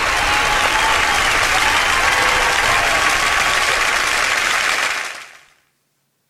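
Audience applause, steady and loud, fading out about five seconds in.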